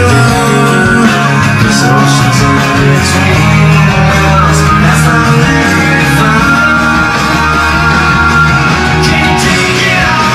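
A guitar song played at full volume through NOAM 4 UTV roll-bar speakers driven by a 400-watt four-channel amp, pretty loud and crystal clear.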